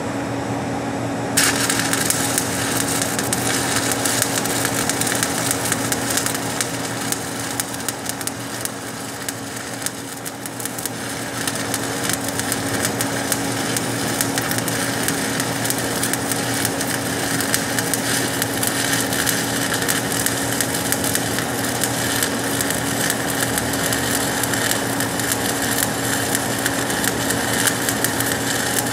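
Shielded metal arc (stick) welding with a 7018 electrode at about 110 amps, struck about a second and a half in, then a steady crackling sizzle as it runs a cover stringer bead on steel pipe. A steady low hum runs underneath.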